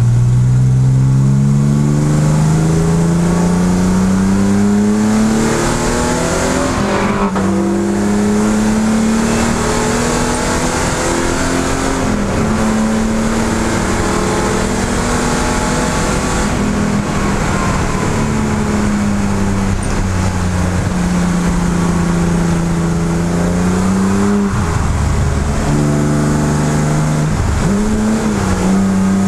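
BMW E12 M535i's straight-six engine at racing speed, heard from inside the stripped cabin: revs climb steadily for the first several seconds, dip at a gear change about seven seconds in, hold high, then sag slowly, with quick drops and recoveries in revs near the end. A steady hiss of wind and wet road runs under it.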